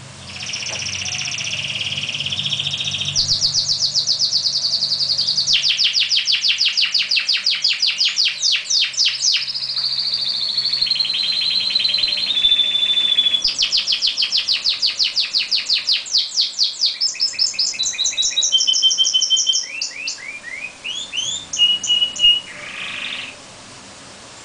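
Domestic canary song: a long run of fast trills and rolls with a few short held whistled notes, stopping about a second before the end.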